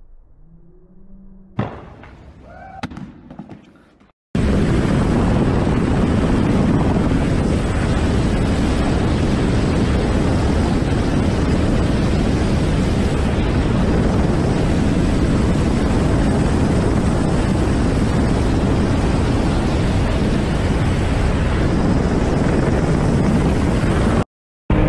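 Loud, steady roar of a helicopter in flight heard from its open door, rotor and engine noise mixed with wind rushing over the microphone. It starts abruptly about four seconds in, after a couple of faint thuds, and cuts off just before the end.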